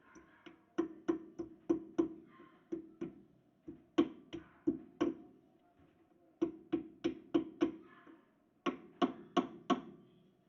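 Sharp knocks on the reassembled rear drum brake of a Chevrolet Celta as its parts are tapped into place. They come in five runs of several taps each, about three a second, with short pauses between runs.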